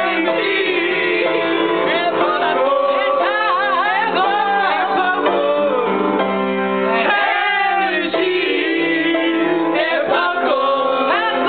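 Music: a singing voice with sliding, wavering notes over steady sustained instrumental notes.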